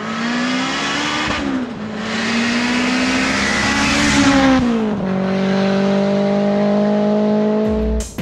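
Turbocharged Honda Civic Si four-cylinder accelerating hard. The engine note climbs, drops at an upshift about a second in, climbs again to its loudest around four seconds, then falls and settles into a steady drone.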